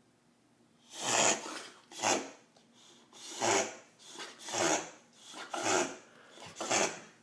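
Boxer dog reverse sneezing: a run of forceful, noisy inhalations through the nose, about one a second with weaker breaths between, starting about a second in.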